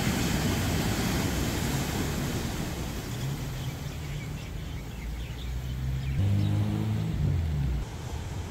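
Steady outdoor background noise with a vehicle engine humming from about three seconds in. The engine grows louder around six seconds, then cuts off abruptly near the end.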